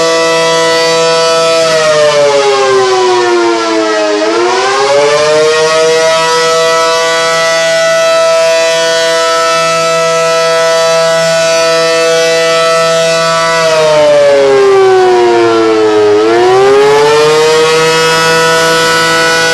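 ACA Allertor outdoor warning siren sounding during a siren test: a loud, steady multi-note tone whose pitch twice slides down and climbs back up, about twelve seconds apart.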